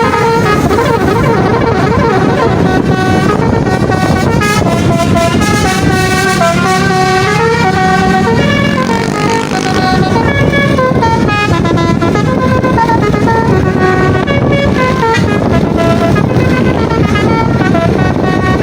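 Bus 'telolet' Basuri multi-tone horn sounding a tune of changing notes, stepping from pitch to pitch with some bent notes, over a steady rumble of bus engine and road noise.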